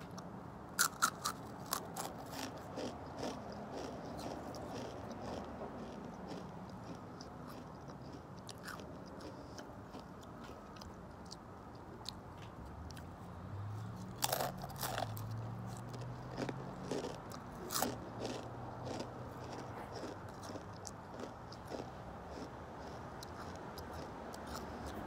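Takis rolled tortilla chips being bitten and chewed, with sharp crunches about a second in and another cluster of loud crunches around the middle.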